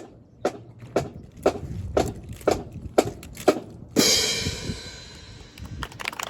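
Drill-display percussion: sharp, even strikes about two a second, closing about four seconds in with a loud crash that rings out and fades over nearly two seconds.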